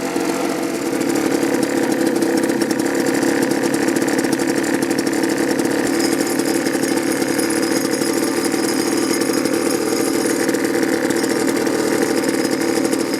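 Two-stroke leaf blower engine running steadily at a low idle on a newly fitted aftermarket carburetor that has only been roughly set; it picks up slightly about a second in.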